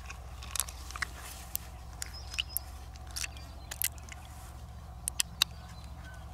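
Scattered short, sharp clicks and wet scraping as fingers dig pearls out of the soft flesh of an opened freshwater mussel, over a low steady hum.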